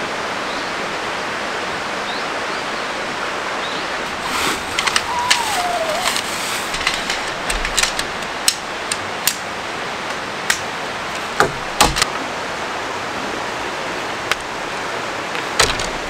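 Steady rushing of strong wind, with a series of sharp clicks and knocks from about four seconds in as tent pole sections are fitted together.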